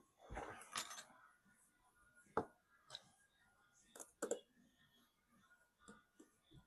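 Faint scattered clicks and taps of small precision repair tools and tiny screws being handled on an opened smartphone, with a short rustle of handling under the first second.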